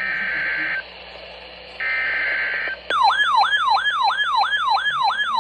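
Emergency Alert System SAME header tones from a NOAA Weather Radio broadcast: two short, flat, buzzy digital data bursts about a second apart. About three seconds in, a loud siren-like alert tone starts, yelping rapidly at about two and a half falling sweeps a second.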